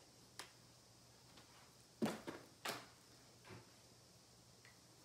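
Craft tools and supplies handled on a tabletop: a few scattered light clicks and knocks in a quiet room, the loudest about two and a half seconds in.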